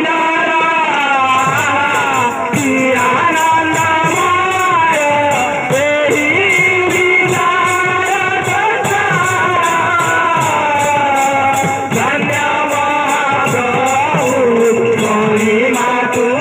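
Kirtan music: hand-played barrel drums and jingling metal percussion keep up a fast, steady beat under a wavering melody line.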